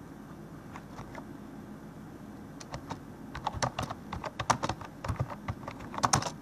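Typing on a computer keyboard: a few keystrokes about a second in, then quick runs of keystrokes from about two and a half seconds on.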